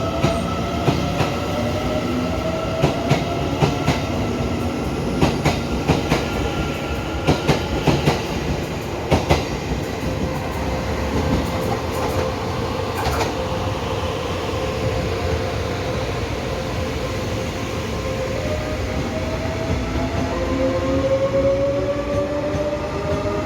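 Train moving along the track. Its wheels clack over rail joints during the first ten seconds or so, under a steady whine that sinks a little and then rises in pitch near the end.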